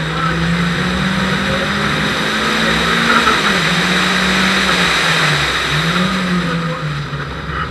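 Renault Clio RS four-cylinder engine pulling under way at speed, its note rising and dipping twice, about halfway through and again near the end, over steady road and wind noise.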